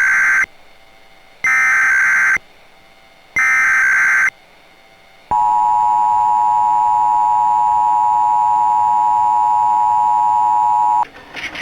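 Emergency Alert System test: the end of one harsh, buzzy SAME digital header burst, then two more like it about a second apart, followed about five seconds in by the EAS two-tone attention signal (853 and 960 Hz), a steady dissonant tone held for almost six seconds and cutting off sharply.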